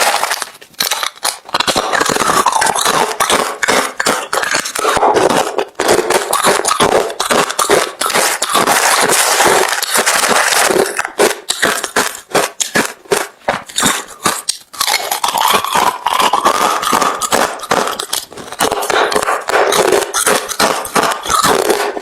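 Hard refrozen crushed ice being bitten and chewed close to the microphone: a dense run of sharp crunches that pauses briefly a few times.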